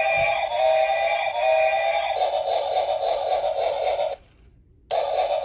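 Battery-powered toy steam locomotive's electronic sound effects playing through its tiny, tinny speaker. A whistle-like tone sounds in short repeated notes, then changes to an even, rhythmic chugging. The chugging cuts out about four seconds in and starts again near the end.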